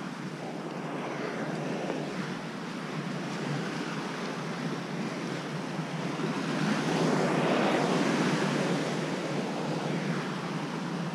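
Ocean surf washing against the rocks at the foot of the sea cliff, mixed with wind on the microphone; a bigger wave swells louder past the middle.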